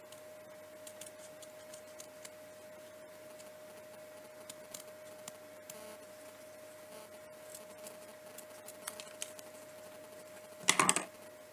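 Quiet handling of a paper cut-out and scissors: scattered faint clicks and rustles over a steady faint hum, with one short, louder rustling bump near the end.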